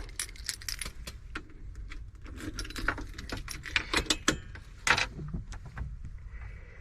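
A bunch of keys jangling, with many short metallic clicks as they are handled.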